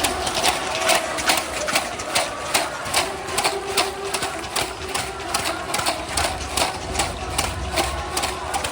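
Game sounds on a gymnasium court: a steady run of sharp knocks, about three a second, with faint squeaks in places.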